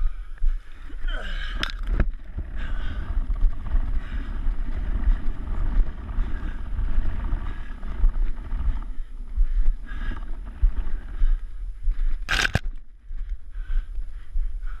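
Wind and handling rumble on a body-worn action camera as its wearer runs and crawls over dirt, with a brief loud burst of rustling noise about twelve seconds in.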